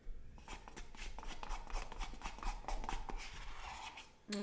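A wooden spoon scraping and clicking against the inside of an ice cream pint cup: a run of quick, irregular clicks and scrapes as the last of the ice cream is dug out.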